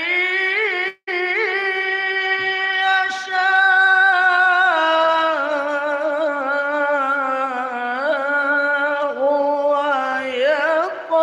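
A male reciter chanting the Quran in a melodic tilawah style: long held notes with wavering ornaments, broken only by a short breath about a second in.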